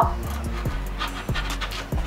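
Background music with a steady beat. A single sharp knock comes right at the start.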